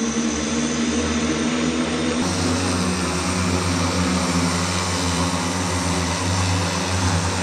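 The Hexa electric multirotor aircraft's 18 motors and propellers drone steadily in a hover just after takeoff, a layered hum of several steady tones over a rushing hiss. The hum becomes deeper and fuller abruptly about two seconds in.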